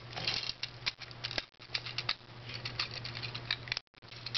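Plastic parts of a Transformers Deluxe Class action figure clicking and rattling as they are folded and handled, a quick irregular run of small clicks.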